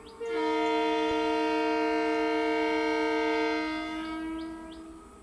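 Indian Railways train horn sounding one long, steady blast of several notes at once, starting just after a brief break and tailing off about four to five seconds in.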